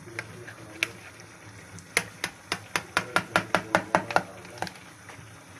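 A knife cutting slices in a tray of milk-soaked güllaç, the blade knocking the bottom of the baking dish in sharp clicks: a few scattered ones, then a quick run of about five a second from about two seconds in to about four.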